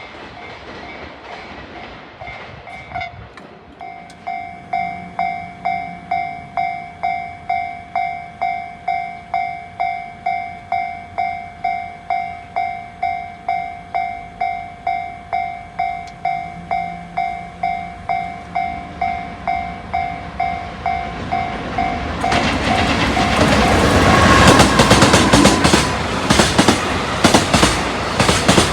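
Japanese level-crossing warning bell ringing about twice a second, then a train arriving and running over the crossing, loud with the clatter of its wheels over the rail joints.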